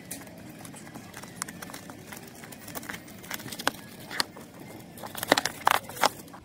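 Clear plastic shrink wrap crackling and crinkling as it is torn and peeled off an album box, with light clicks and taps of handling. The crackles come thicker and louder over the last two seconds or so.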